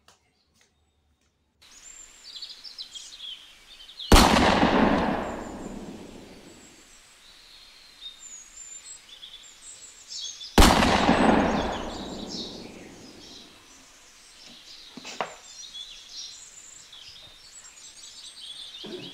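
Two sudden loud booms about six seconds apart, each dying away over about two seconds, over a background of birds chirping.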